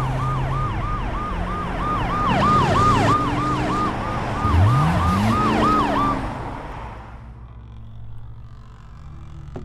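Police sirens yelping rapidly, about three rises and falls a second, over a running car engine, with a slower second siren wail coming in at times. An engine revs up about four and a half seconds in, and the sirens fade away around seven seconds.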